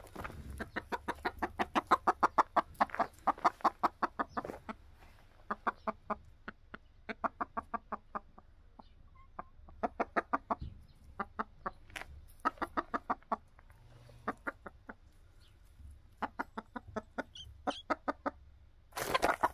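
Domestic hens clucking in fast runs of short notes, several a second, broken by brief pauses.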